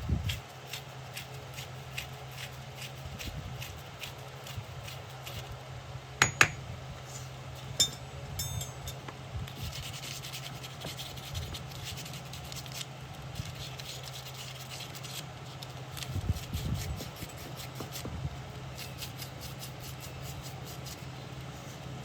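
Iron being worked by hand: repeated rubbing and scraping strokes on metal, with two sharp ringing metallic clinks about six and eight seconds in, over a steady low hum.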